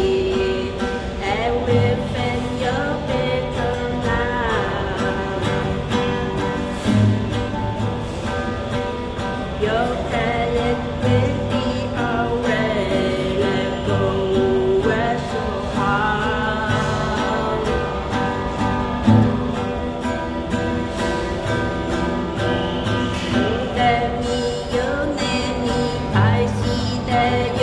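A soft pop song: acoustic guitar accompaniment under a sung melody.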